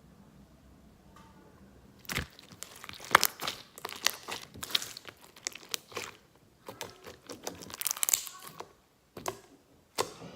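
Clear jiggly slime made of clear glue and water being squished and stretched by hand, giving weird noises: runs of quick wet clicks, pops and crackles that start about two seconds in, with a short break near the end.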